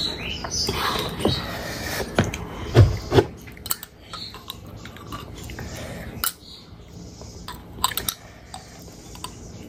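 Close-miked, wet chewing and lip-smacking of oily rice and spicy pork pickle eaten by hand. Sharp clicks of a metal spoon against a glass pickle jar come in the second half, and there are a couple of louder knocks about three seconds in.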